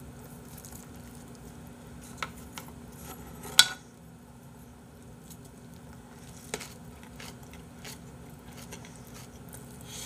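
Quiet chewing of a bossam wrap of boiled pork in salted cabbage, with a few sharp clicks of a metal spoon against a dish; the loudest click comes about three and a half seconds in.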